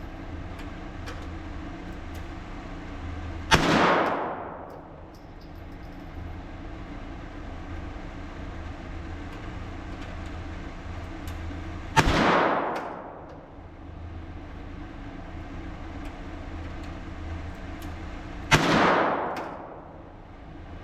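Three single .22 LR rimfire shots of Norma Match ammunition, fired several seconds apart: the first a few seconds in, then about 8 s and 6.5 s later. Each sharp crack trails off in about a second of echo that drops in pitch. A steady low hum runs between the shots.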